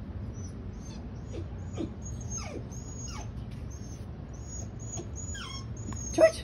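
Dog whimpering in a run of short, high-pitched whines, each dropping sharply in pitch, the loudest one near the end: a dog balking at stairs it is afraid of.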